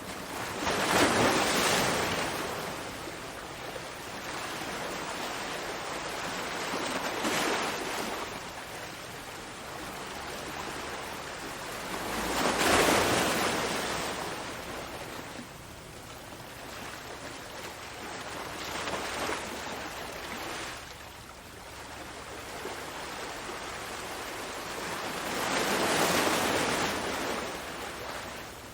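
Ocean waves breaking in repeated surges, the loudest about a second in, near the middle and near the end, with softer ones between.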